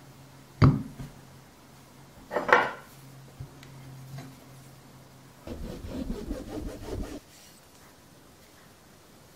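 Slabs of modelling clay handled on a ceramic plate: a sharp knock about half a second in, a short scrape a couple of seconds later, then nearly two seconds of rough rubbing and scraping.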